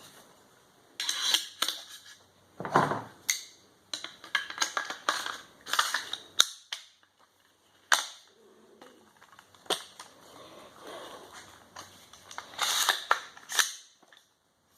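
Daniel Defense M4 V7 AR-15 rifle being handled and worked: repeated sharp metal clicks and clacks with short sliding sounds as the bolt carrier and charging handle are moved in the receiver.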